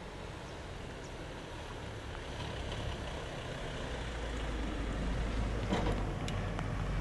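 White passenger van driving up the street, its engine rumble and road noise growing steadily louder as it comes close.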